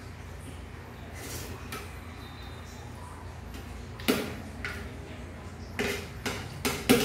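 Spoon and fork scraping and clinking against a plate of noodles, with several sharp clinks in the second half, over a low steady hum.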